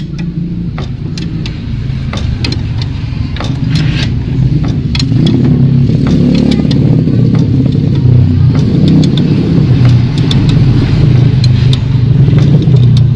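A vehicle engine running steadily, growing louder about five seconds in, with many sharp metallic clicks and taps over it.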